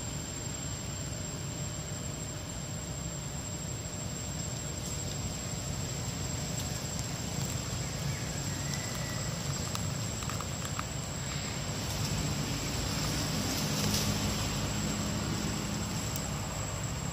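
Forest background noise: a steady hiss with a constant high-pitched whine, with a few faint clicks and rustles in the last few seconds.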